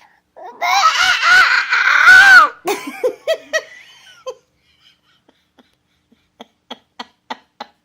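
Baby's loud, high-pitched squealing laugh, pulsing for about two seconds, then a few shorter laughing bursts that trail off.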